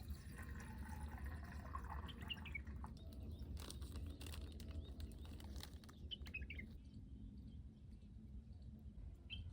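Small birds chirping in short bursts about three times, over a faint low rumble, with scattered clicks in the middle.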